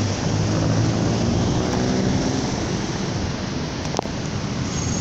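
Steady wind rushing over a phone microphone on a city street with traffic, a vehicle engine humming low in the first couple of seconds. A single sharp click about four seconds in.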